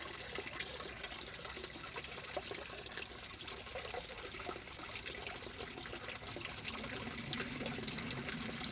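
Water trickling steadily into a small garden pond, a fine, crackling splash, with a faint low hum coming in about seven seconds in.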